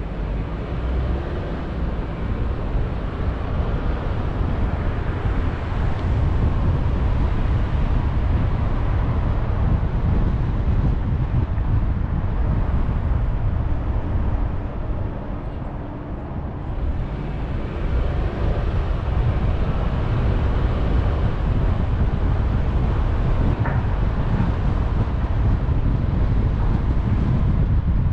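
A car driving on a city street: a steady low rumble of road and wind noise. It eases briefly a little past halfway as the car slows at a stop sign, then builds again as it pulls away.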